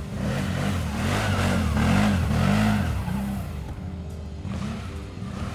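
Loncin X-Wolf 1000's 976 cc V-twin engine revving up and down in quick repeated swells while ridden in rear-wheel drive on snow. It is loudest in the first three seconds, then eases off.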